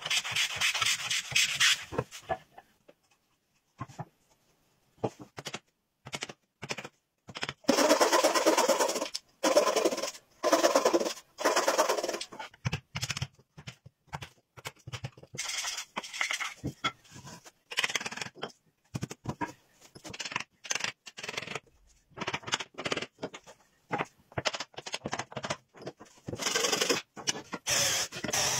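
Hand woodworking at a bench: long shaving strokes of a wooden hand plane across a board, hammer blows on a chisel cutting joints in short sharp knocks, and a cordless drill running into wood near the end.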